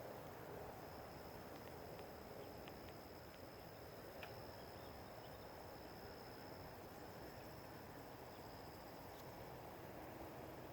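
Faint, steady high-pitched trilling of crickets over a soft outdoor hiss, with a few faint ticks a couple of seconds in.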